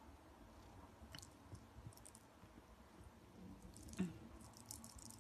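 Mostly quiet, with faint rustles and light clicks of a kitten's paws and a small toy ball on a fabric couch. One soft thump about four seconds in as the kitten's paw strikes the ball.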